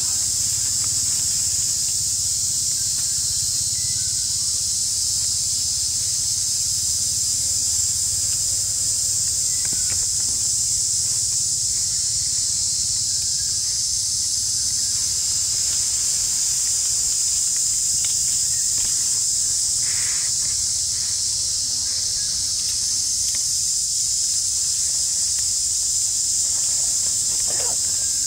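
A steady chorus of insects in the forest, an unbroken high-pitched hiss at an even level throughout.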